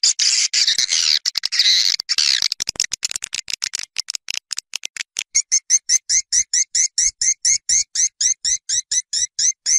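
Swiftlet calls from a swiftlet-farming lure recording: dense twittering chatter for the first couple of seconds, then rapid clicking, then a steady run of short rising chirps, about four a second. It is the outdoor call played to draw swiftlets toward a nest house.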